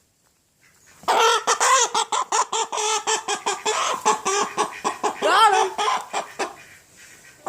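A chicken squawking loudly in a rapid run of calls close by, starting about a second in and dying down near the end, with one rising call just past the middle.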